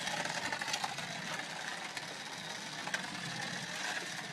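Remote-control car's small electric motor whining faintly as it drives, its pitch wandering up and down, with a few light clicks.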